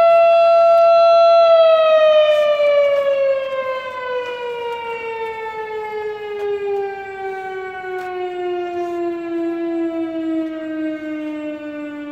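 Outdoor warning siren holding a steady tone for about a second and a half, then winding down slowly and evenly in pitch to a low moan at the end of its cycle.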